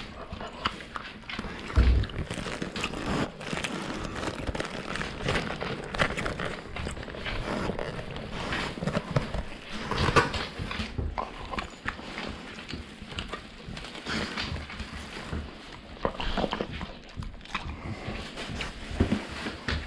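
Labrador–husky mix dog snatching roast beef from a man's mouth and chewing it at close range: a steady run of short mouth clicks and smacks, with one loud bump about two seconds in.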